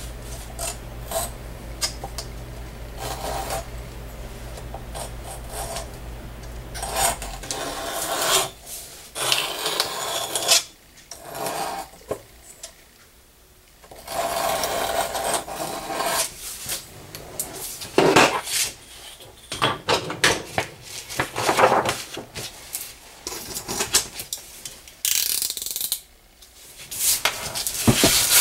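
Steel dividers scratching across vegetable-tanned leather in repeated irregular strokes of a second or two each, scribing a circle for a tankard bottom. A low hum runs underneath for about the first seven seconds, then stops.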